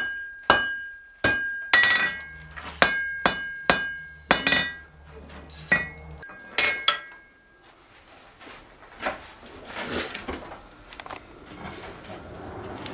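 A blacksmith's hammer strikes hot iron on an anvil, about a dozen uneven blows, each with a ringing metallic tone, bending over the end of an iron hasp blank. The blows stop about seven seconds in, and a rushing noise builds up toward the end.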